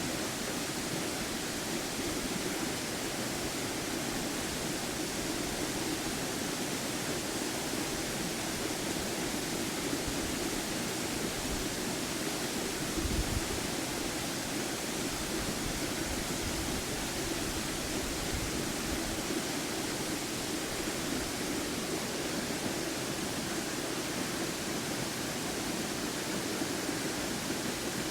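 Waterfall pouring, a steady loud rush of falling water, with a brief low bump about halfway through.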